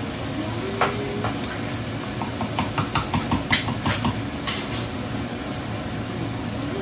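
Food sizzling in a frying pan while a utensil stirs it, knocking against the pan in a quick run of clicks from about two seconds in.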